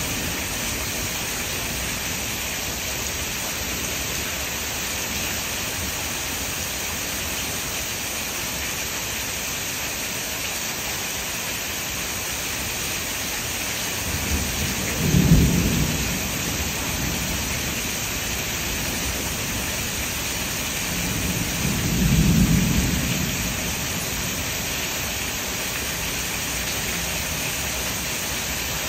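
Steady heavy rain hissing on surfaces, with two low rolls of thunder: one about halfway through with a sharper peak, and a broader one about seven seconds later.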